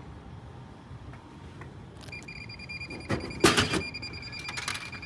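Vending machine sounding a steady high electronic beep tone from about two seconds in, with a loud clunk and rattle about a second later and a few light clicks after.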